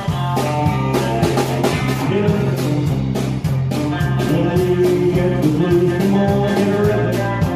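A live band plays an instrumental stretch of a country rock-and-roll song, with guitar over a steady drum beat and a low bass line.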